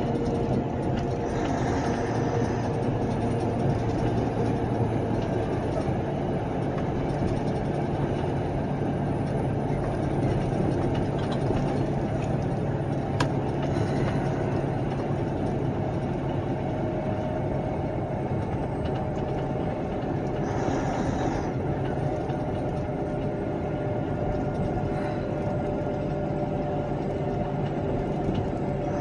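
Steady engine drone and road noise heard inside the cab of a vehicle driving along a highway, with a brief hiss about two-thirds of the way through.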